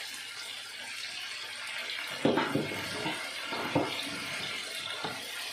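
Cabbage, onion and sliced hot dogs sizzling in a hot frying pan as soy sauce is poured in: a steady hiss, with a few sharp knocks.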